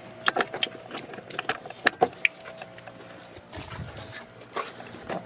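Small metal tools clicking and rattling as they are handled, with a quick run of sharp clicks in the first two seconds and a few more near the end.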